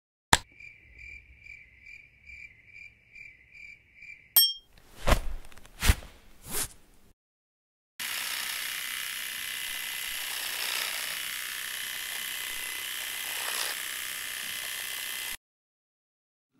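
A high electronic beep repeating about twice a second, cut off by a click, then three loud knocks. After a short pause a three-head rotary electric shaver buzzes steadily for about seven seconds and stops abruptly.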